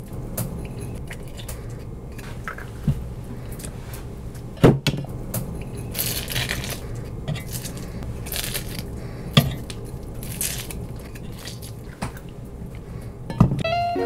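A knife cleaning small wet fish over a steel pot of water: repeated short scraping strokes, with a few sharp clinks of metal on the pot.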